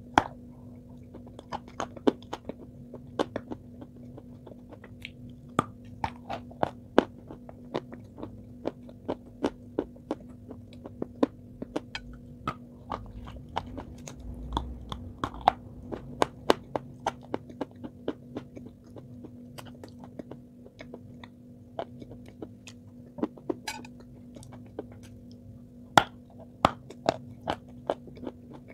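Close-miked biting and chewing of a hard chunk of eating clay spread with chocolate paste: irregular sharp crunches, one or two a second, over a steady low electrical hum.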